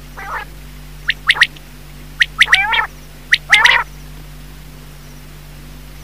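Quail calling: a soft note, then three bursts of sharp calls about a second apart, each a quick run of short piercing notes ending in a harsher, lower note. A steady low hum runs underneath.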